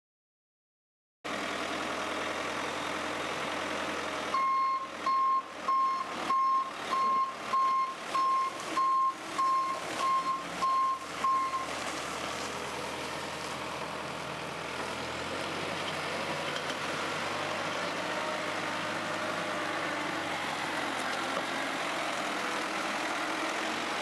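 Volvo BL61 backhoe loader's diesel engine running as the machine manoeuvres, starting about a second in. From about four seconds in to about twelve seconds in, its reversing alarm gives about eleven evenly spaced high beeps, one and a half a second, while it backs up.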